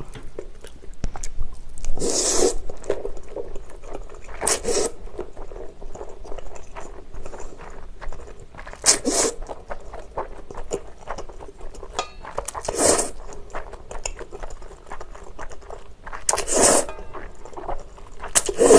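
Chewy Paldo Jjol Bibimmyeon noodles slurped up from chopsticks in about six short, loud bursts a few seconds apart, with faint wet chewing in between.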